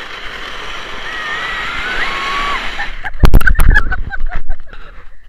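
Wooden toboggan sliding fast on ice: a steady scraping hiss with a few high squeals over it, which cuts off suddenly about three seconds in. A burst of loud knocks and thumps follows as the ride ends in a tumble, then scattered smaller clicks.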